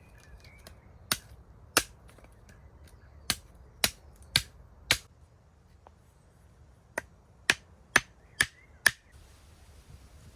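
A series of eleven sharp knocks or taps in two runs: six over the first five seconds, then a pause, then five more, about two a second.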